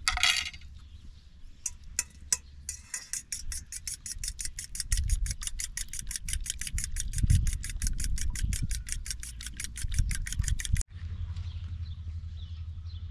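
Eggs being beaten by hand in a small steel bowl: a fast, even clicking of the utensil against the bowl for about eight seconds, stopping abruptly. A few single clinks come before it, and a low steady hum follows.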